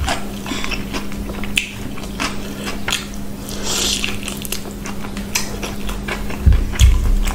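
Close-up eating sounds: fingers squishing rice and mutton curry together with crispy fried noodles, in wet clicks and crackles, and mouth sounds as a handful is eaten about four seconds in. A few low thumps near the end, under a steady low hum.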